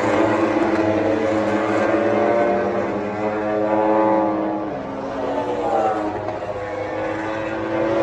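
A pack of four-cylinder MotoGP race bikes passing through a corner, several engines sounding at once. Their pitch rises and falls as the riders come off and back on the throttle, dipping a little about five seconds in.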